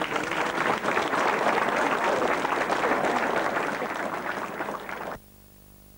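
Audience applauding, a dense even clapping that tapers slightly and then cuts off abruptly about five seconds in, leaving only a faint steady hum.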